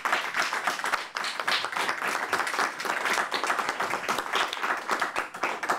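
Audience applauding: many hands clapping in a dense, even stream that stops abruptly near the end.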